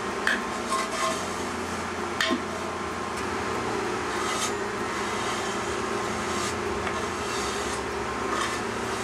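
Aluminium screed bar scraping and dragging across a semi-dry sand-and-cement mortar bed, a scratchy rasp in repeated strokes with a few sharp knocks in the first couple of seconds, as the bed is levelled to the drain slope.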